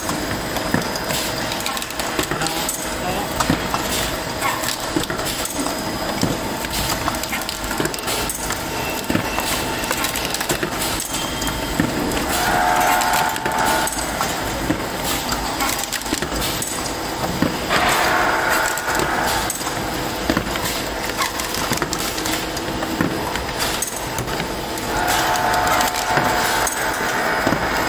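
Semi-automatic pre-fold lock crash-bottom folder-gluer machine running, its belts and rollers carrying corrugated carton blanks through with a steady mechanical hum and rapid clattering and clicking.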